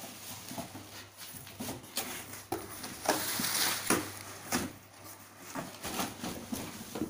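Cardboard box and plastic packaging handled by hand while being unpacked: rustling with irregular knocks and taps, and a louder spell of rustling about three seconds in.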